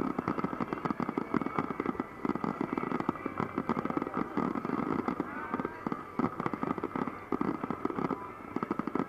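Fireworks barrage: many aerial shells bursting in quick, overlapping succession, a dense stream of bangs and crackling without a break.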